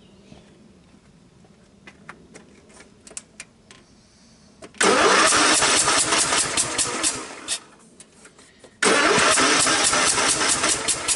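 Craftsman lawn tractor's 18 hp Kohler OHV single being cranked by its electric starter on starting fluid, in two bursts of about three and two seconds after a few faint clicks. It turns over but does not keep running; weak compression, which the owner takes for a blown head gasket.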